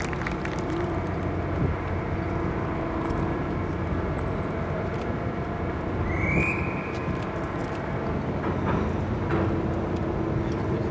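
Steady low rumble and hum of a ship's engines running. A short, rising high-pitched call cuts through about six seconds in.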